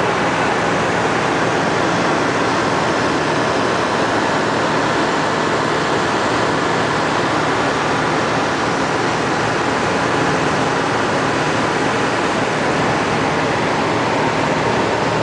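Steady rushing noise aboard a moving riverboat: water moving past the hull and air over the open deck, with a faint low hum underneath, unbroken throughout.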